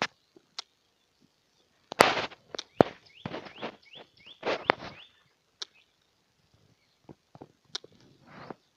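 Footsteps on a dry dirt and gravel roadside, a few irregular scuffs and crunches, with a bird giving a run of short rising chirps about three to four seconds in.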